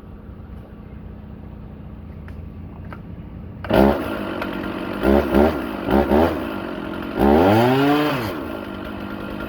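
Stihl MS460 two-stroke chainsaw restarted hot: it fires suddenly about four seconds in, is blipped through a few quick revs and one longer rev, then settles to a steady idle. It starts and runs after heat-soaking, showing no hot-start or heat-related run fault.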